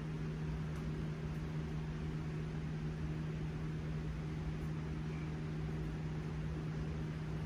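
A steady mechanical hum: a constant low drone at one fixed pitch over a faint even hiss.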